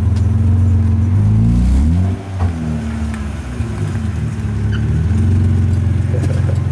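Mazda MX-3's engine idling while still cold, with one short rev about a second and a half in that rises and drops back, then settling into a steady idle.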